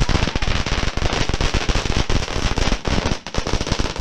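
Ground fountain firework spraying sparks with a dense, rapid crackle of small pops, thinning a little near the end.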